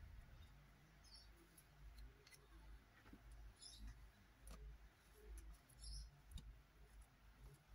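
Near silence, with a few faint, light clicks as a palette knife spreads modelling paste across a stencil.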